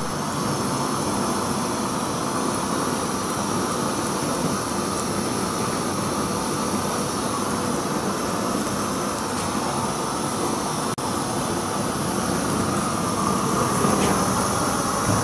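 Hose-fed handheld gas torch burning with a steady, even rushing noise as its flame melts the wax pour cup out of a ceramic shell mold. The sound breaks off for an instant a little before 11 seconds.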